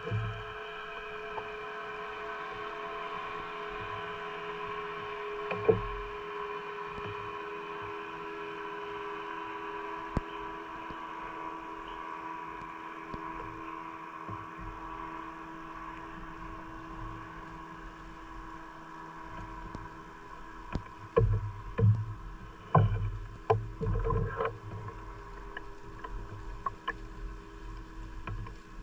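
Steady drone of a boat engine running at a distance, fading slowly, with irregular low knocks and thumps from about two-thirds of the way through.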